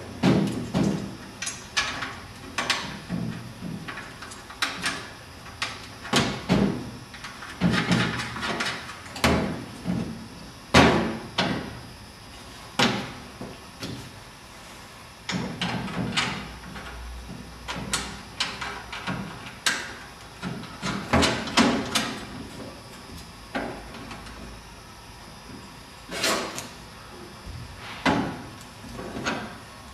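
Steel brackets, bolts and a spanner clanking and knocking against aluminium chassis panels as a pedal-box and steering-column bracket assembly is fitted and bolted together by hand: irregular knocks every second or two.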